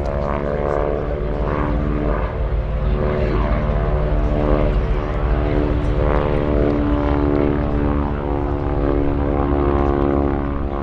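Propeller-driven biplane flying a display pass, its piston engine running steadily at a constant pitch.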